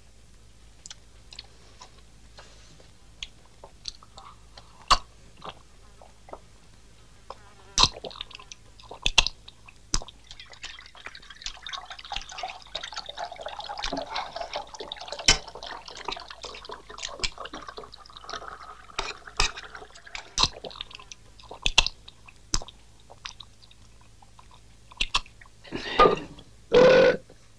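A man eating beans greedily: a metal spoon clicking and scraping on a plate, with a stretch of wet chewing and slurping in the middle. Near the end come two loud gasping outbursts of breath.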